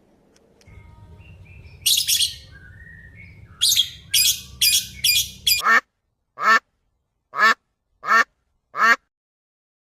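Bird calls: a few harsh, noisy squawks and small chirps over a faint low hum, then a run of short calls, each falling in pitch, about one a second.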